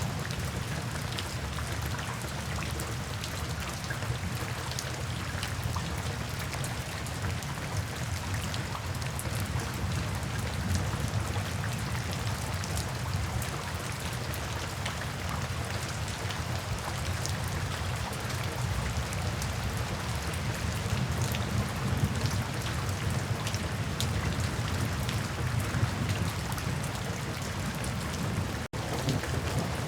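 Steady rainfall, many individual drops ticking over a continuous rushing hiss with a low rumble underneath. The sound cuts out for an instant about a second before the end.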